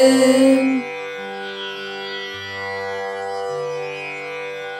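Closing bars of a Tamil song over an instrumental backing track: a loud held sung note stops under a second in, leaving quieter accompaniment of sustained tones over a bass that steps from note to note.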